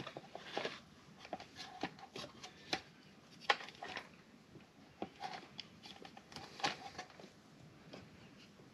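Irregular small clicks, knocks and rustles of a plastic fuel pump module being handled and fitted together by hand.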